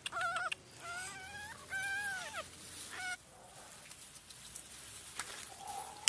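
An animal calling: four short, wavering, high-pitched calls in the first three seconds, then only faint background.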